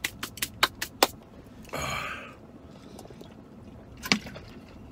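A quick run of sharp crinkles and clicks in the first second, a short rustle about two seconds in, and another sharp crinkle near the end: food packaging and a thin plastic water bottle being handled.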